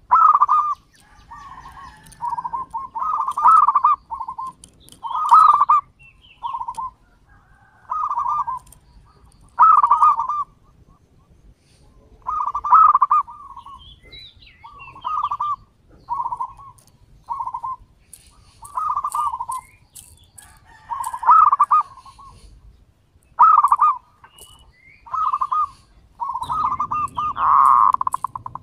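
Zebra dove (perkutut) singing its long cooing song: short phrases of quick, rolling coo notes, repeated every second or two.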